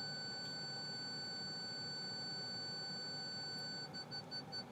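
2011 Lincoln MKS parking-sensor chime sounding one long unbroken tone, the car's signal that it is very close to an obstacle while backing into the space. Near the end the tone breaks into fast beeps, about five a second.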